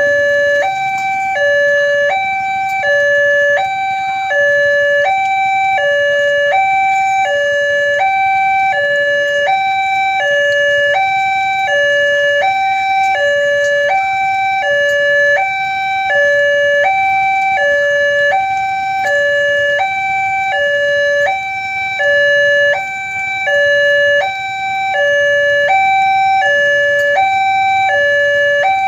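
Railway level-crossing warning alarm sounding its electronic two-tone signal, steadily alternating a higher and a lower tone, about one high-low pair every second and a quarter: the warning that a train is approaching and the barriers are down.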